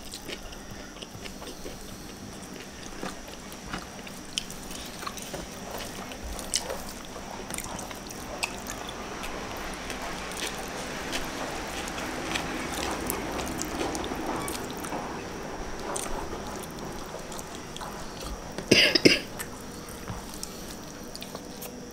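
Mukbang eating sounds: fingers mixing and picking up rice with sambal fish off a tray, soft chewing and small wet mouth clicks. There is a brief louder mouth noise near the end.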